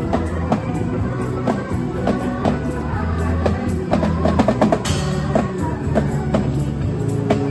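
Drum kit played to a steady beat of about two strikes a second over music with held bass notes, with a busier fill and a cymbal crash about five seconds in.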